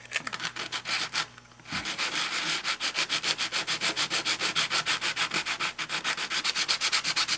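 Abrasive paper rubbed quickly back and forth across the underside of an N scale turnout's ties, at about eight strokes a second with a short pause about a second in. It is scrubbing off the contact adhesive and paper residue.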